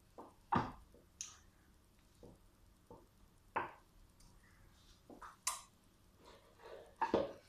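Scattered light taps, clicks and soft knocks from handling baking things at a kitchen table, short separate sounds with a small cluster near the end.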